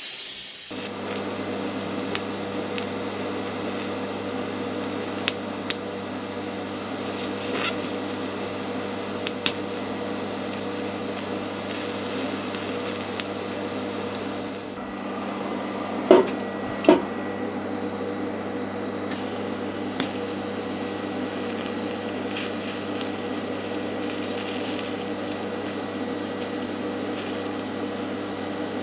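A gas torch's hiss cuts off within the first second, then a TIG welding arc buzzes steadily while tacking a cast iron gearbox with silicon bronze rod. A few sharp clicks sound through it, the two loudest about a third of the way from the end.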